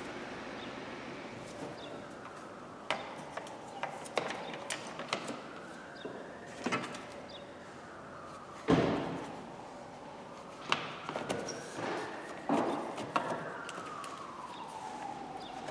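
Clicks and knocks of plastic trim being handled and pressed into place at the back of a BMW 320d's engine bay, with one louder knock about halfway through. A siren wails faintly in the background, its pitch slowly rising and falling twice.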